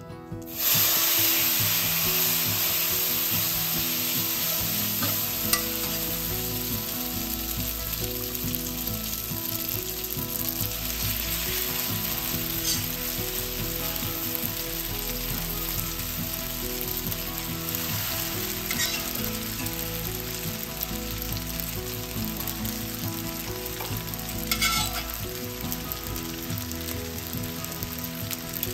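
Spaghetti hitting melted butter in a hot metal sauté pan, a loud steady sizzle that starts suddenly about a second in. The pasta is stirred and tossed with tongs, which clink against the pan a few times.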